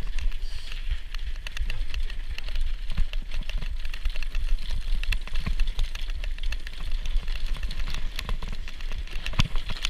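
Mountain bike riding down icy, snowy cobbles: a dense run of irregular clicks and rattles from the bike and its tyres on the rough surface, over a steady low wind rumble on the action camera's microphone.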